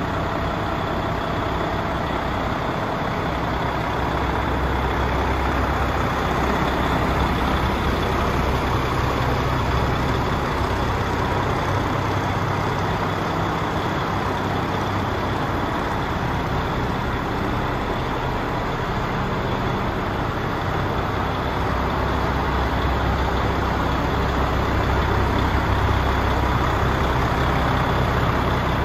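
DAF XF105 460 tractor unit's Paccar MX 460 hp straight-six diesel idling steadily, a constant low hum that grows a little louder near the end.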